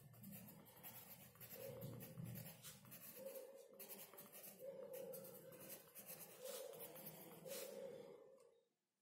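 Pencil writing on sketchbook paper: a faint run of short scratchy strokes as letters are written, stopping shortly before the end.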